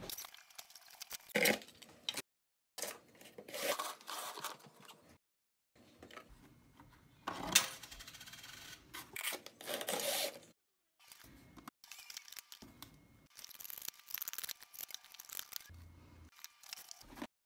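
Hands handling, scraping and pressing cardboard pieces together, in short patches cut off abruptly by dead silence, with one sharp click about halfway through as the loudest sound.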